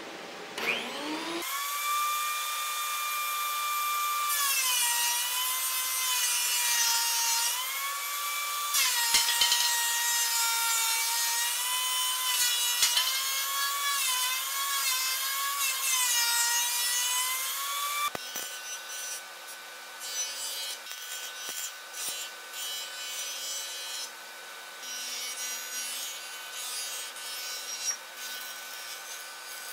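A benchtop thickness planer switched on, its motor whine rising as it spins up, then running with loud cutting noise, the pitch dipping each time a board is fed through the cutterhead under load. After about 18 seconds, a quieter jointer runs while a board is pushed across it in short cutting passes.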